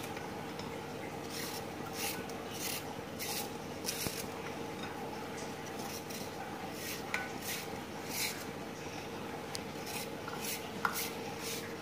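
A knife cutting raw potato slices into thin strips, heard as irregular short, crisp strokes about one to two a second.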